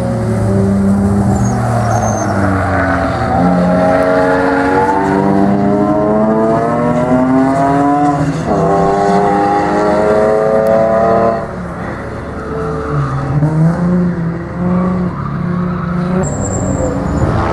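Racing car engines on a circuit, a BMW E46 M3 and a yellow coupe, revving hard through the gears: the engine note climbs steadily, drops sharply at a gear change about eight seconds in, and climbs again. It drops and quietens about eleven seconds in, and a short high tyre squeal comes near the end.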